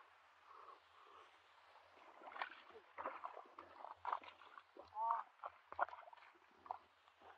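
Bare feet and hands squelching and sloshing in shallow mud and water: quiet at first, then a run of short wet splashes and squelches from about two seconds in. A brief pitched, voice-like sound about five seconds in.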